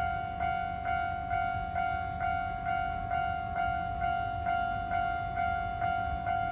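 Japanese railroad crossing alarm ringing, an electronic bell tone struck evenly a little over twice a second, over a low rumble.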